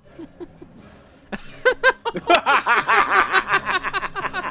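Two men break into loud laughter about a second and a half in, in quick repeated bursts of about five a second.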